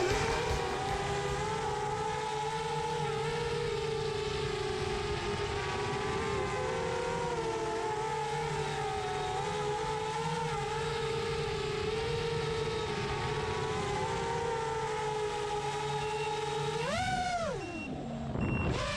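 Brushless motors and propellers of a 6-inch FPV drone whining at a steady pitch with slight wavers, then rising sharply and falling back near the end as the throttle is punched and let off.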